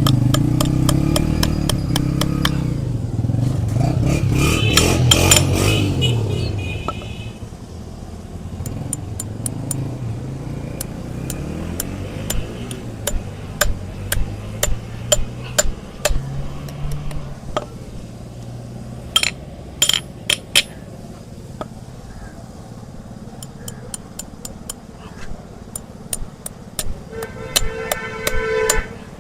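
A vehicle engine runs for the first six seconds or so, then fades away. After that come sharp, irregular taps and clicks of hoof-trimming tools working on a donkey's hoof.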